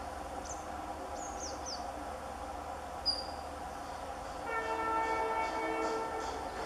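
Indian Railways WDG 3A (ALCO) diesel locomotive horn sounding one chord blast of about two seconds, starting a little past midway, from a train that is approaching. A few short bird chirps come in the first two seconds.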